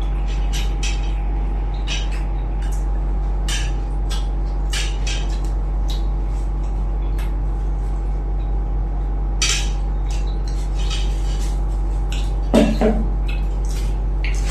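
Plates and utensils clinking and tapping in scattered short clicks while people eat, over a loud steady hum.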